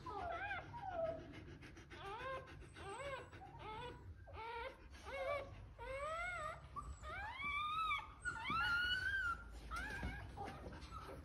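Dog whining and whimpering: a string of short cries that rise and fall, then longer rising cries about seven to nine seconds in.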